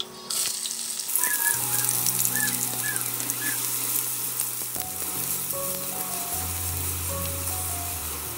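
Chopped onions sizzling loudly as they fry in hot oil in a nonstick wok, stirred with a spatula. The sizzle starts just after they go in and grows louder about a second in.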